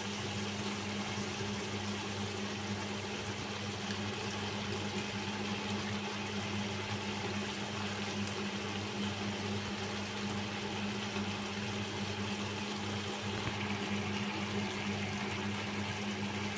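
A pot of chicken stew simmering, its sauce bubbling steadily, over a steady low hum.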